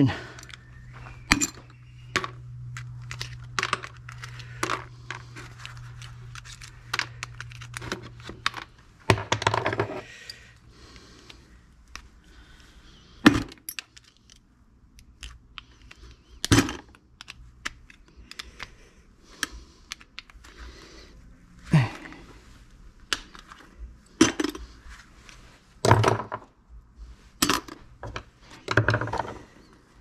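Small steel-cased microwave motors being pried apart with a screwdriver and pliers to salvage their copper: irregular metallic clicks, scrapes and clinks, with a few sharper knocks of parts striking metal or dropping into a bucket.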